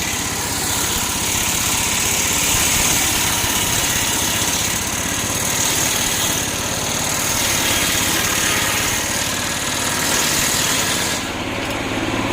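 The engine of a home-built circular sawmill running steadily, with a high hiss above it. The hiss drops away about eleven seconds in.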